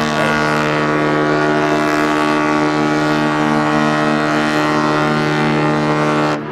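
Ship's horn sounding one long, steady, low blast with many overtones, cutting off near the end.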